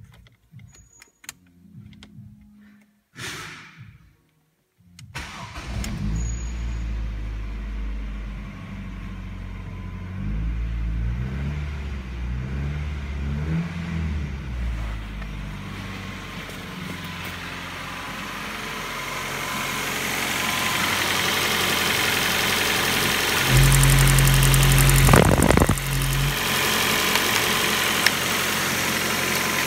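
Ford Focus 1.6-litre petrol engine (code FYDA) being started: a few clicks and a short whir, then it catches about five seconds in. It is revved a few times, settles to idle, is held at a brief higher rev about three-quarters of the way through, then idles again.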